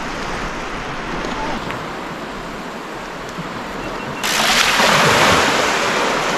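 A steady rush of water and wind, then about four seconds in a sudden loud splashing hiss lasting about two seconds, as a bicycle is ridden into shallow seawater.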